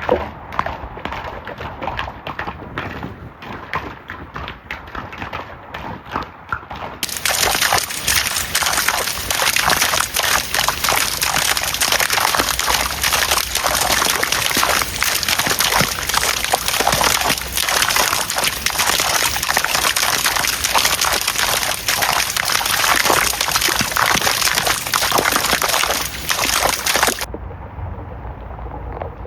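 Rain: light, scattered drop patter at first, then heavy, dense rain that cuts in suddenly about seven seconds in and stops abruptly near the end, leaving a low rumble.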